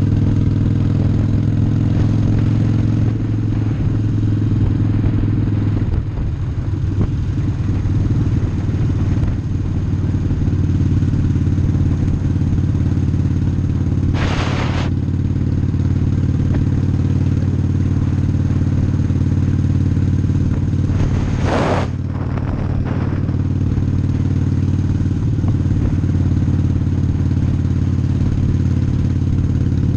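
Harley-Davidson Sportster's air-cooled V-twin engine running steadily under way, heard from the bike itself. Two short, louder noises break through about fourteen and twenty-two seconds in.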